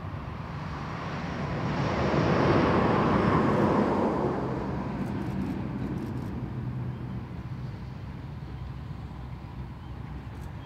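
A vehicle passing by: the noise builds to a peak about two to four seconds in, then fades away.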